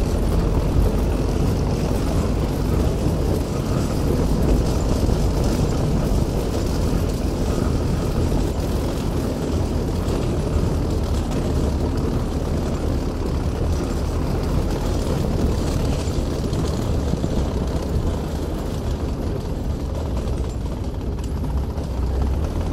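NSU Kettenkrad half-track's Opel four-cylinder petrol engine running steadily under way, a continuous low rumble heard from on board.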